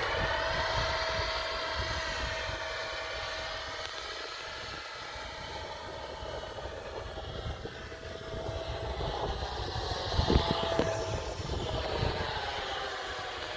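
A 64 mm electric ducted fan on a 3D-printed RC F-35 jet model, whining in flight. Its pitch swells and falls as the jet passes and the throttle changes, with wind rumbling on the microphone and a few gusts about ten seconds in.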